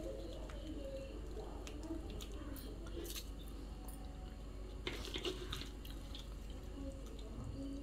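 Hands squeezing wet grated coconut in a wire-mesh sieve, pressing out the thick first coconut milk so that it drips and trickles into the bowl below, with a few brief wet squishes.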